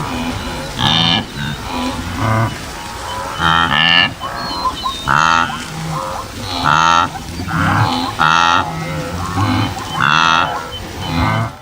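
Several large animals calling over and over: loud, nasal, honking or lowing calls that overlap, with a new call every second or so.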